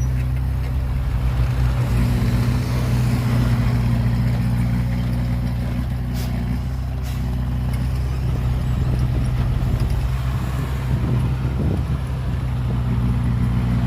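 Engine of heavy earthmoving machinery running steadily with a low drone, with two brief clicks about six and seven seconds in.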